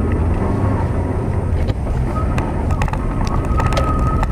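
Vehicle rumble with wind noise on the microphone, with several sharp clicks and a steady high tone coming in about halfway through.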